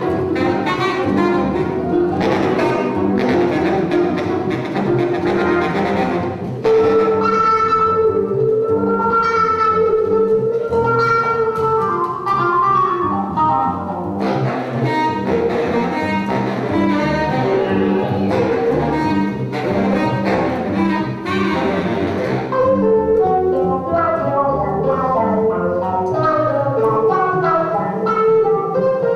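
Live acoustic jazz, instrumental with no singing: an upright double bass and an archtop jazz guitar playing together. A run of long held notes comes in about seven seconds in, and busier guitar lines follow from about halfway through.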